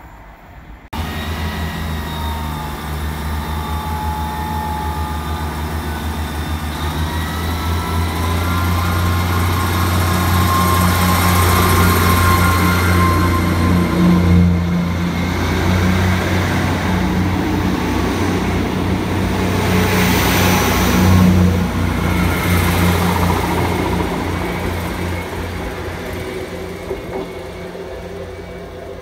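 Class 158 diesel multiple unit's underfloor diesel engines running with a steady low drone, growing louder to a peak about halfway through and then fading away.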